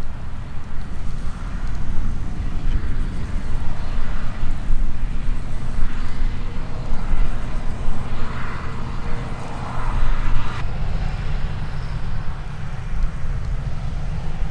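Heavy harvest machinery running, a deep steady engine rumble with a rushing noise that swells and fades.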